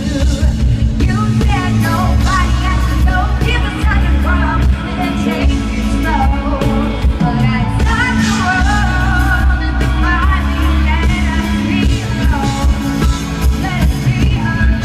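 A live pop song over a venue's sound system: a lead singer over an amplified band with a heavy, steady bass, the voice holding long, wavering notes.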